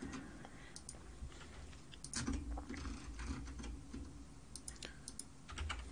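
Faint, scattered clicks of a computer keyboard and mouse, with a quick run of several clicks about four and a half to five seconds in.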